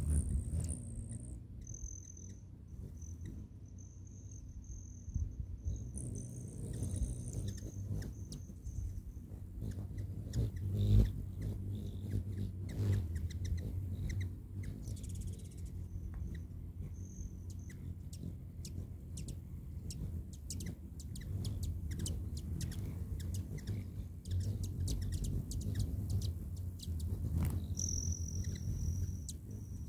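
Hummingbirds, among them rufous hummingbirds, zipping around a nectar feeder: a low hum of wings close by, many sharp chip notes, and thin high steady whines at the start and near the end.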